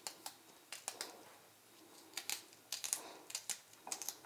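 Kitchen knife slicing garlic cloves: a quiet, uneven run of sharp taps, some coming in quick pairs, as the blade cuts down through the cloves.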